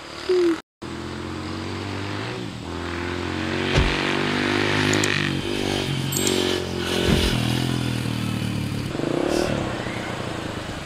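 Yamaha TT-R125 dirt bike's single-cylinder four-stroke engine accelerating hard through the gears, its pitch climbing and dropping back at each shift several times.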